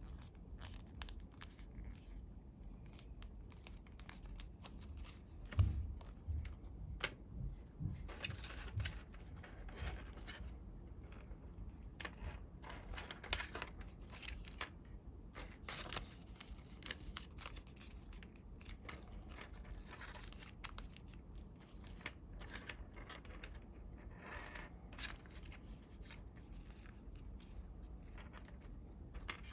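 Colored paper being handled, folded and creased by hand: a run of crisp paper rustles, crinkles and scrapes. A few soft thumps come about six to nine seconds in.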